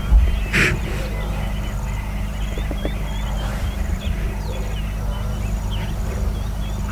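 Steady low hum of an idling engine under small birds chirping, with one short sharp hissing burst about half a second in.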